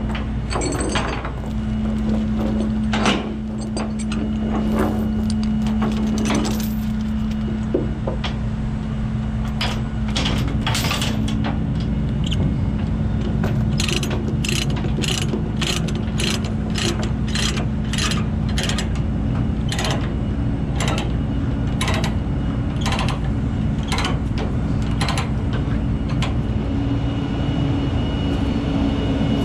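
Ratchet chain binder being cranked to tension a tie-down chain, clicking in an even run of about two clicks a second, after some clanking of chain links. An engine idles steadily underneath.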